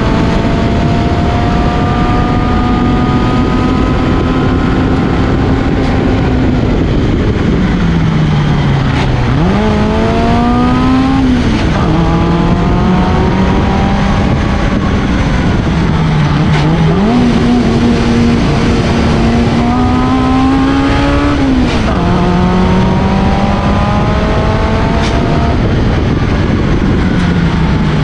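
Reliant 750cc four-cylinder race engine of a Jeffrey Mk3b sports racer, heard from onboard on a hillclimb run: revs climbing hard, stepping down sharply at gear changes and falling away around 8 and 16 seconds in and again near the end. Wind and road noise sit under the engine note in the open cockpit.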